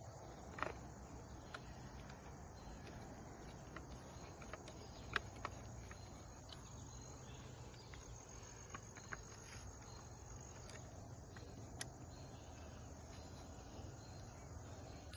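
Insects, likely crickets, chirring as a faint, steady high-pitched drone, with a few sharp clicks and taps scattered through.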